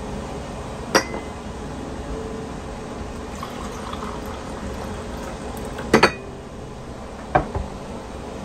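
Brewed coffee poured from a tin can into a porcelain teacup, with sharp clinks of metal and china: one about a second in, a double one about six seconds in, and another shortly after.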